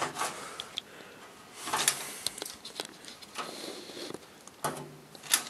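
Soft rustling and scattered light clicks of hands handling the wiring and sheet-metal case of an open computer drive enclosure.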